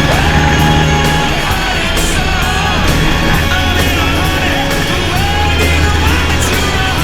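Loud rock music with a sung vocal line over a steady bass and drums.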